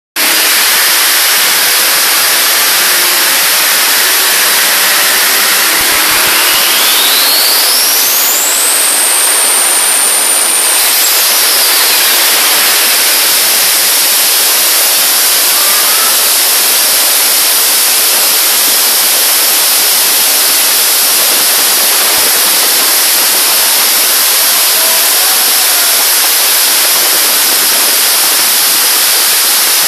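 Loud, steady rushing noise from the Toyota Supra's 2JZ-GTE engine with a Garrett GT47 turbocharger running on a dyno. A high turbo whistle rises about six seconds in, holds at a high pitch, then falls away after about eleven seconds.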